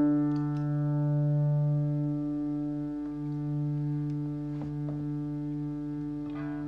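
Ambient electric guitar played through reverb, delay and fuzz pedals into a small combo amp: a long held drone chord that slowly fades, with a few soft picked notes ringing over it around the middle and again near the end.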